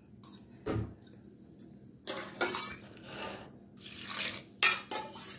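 Water poured into a pressure cooker pot full of leaves, splashing in three spells. Before the pouring, a metal spoon clinks once against the pot about a second in.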